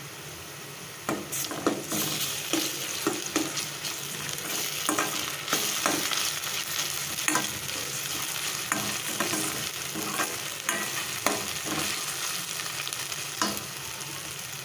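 Onions and ginger-garlic paste frying in oil in a stainless steel kadai, sizzling steadily, while a metal spoon stirs them, clicking and scraping against the pan from about a second in.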